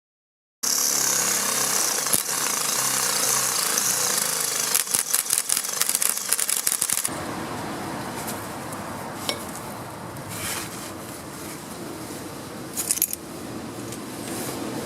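Impact wrench fitted with a drill chuck, running with a loud steady whir and then hammering in a fast run of sharp blows for a couple of seconds. After that a quieter, duller steady noise carries on with a few separate clicks.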